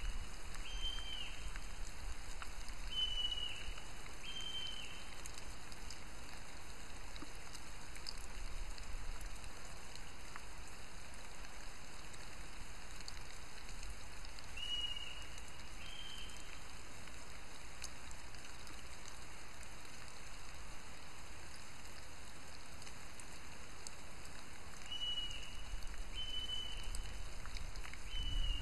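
Northern goshawk calling from out of sight: short falling calls given in pairs about a second apart, four near the start, two around the middle and three near the end. A steady hiss runs underneath.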